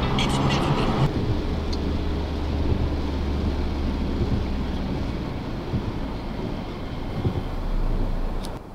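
Steady low rumble of road and engine noise inside a vehicle's cabin, as picked up by a dash cam. The level drops suddenly near the end.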